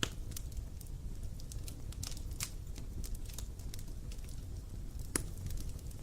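Wood fire crackling: scattered sharp pops and snaps over a steady low rumble, with one louder pop about five seconds in.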